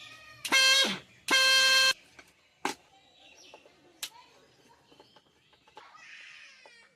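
Two loud horn honks, each about half a second long, the first sagging in pitch as it cuts off. Sharp clicks and faint outdoor background follow.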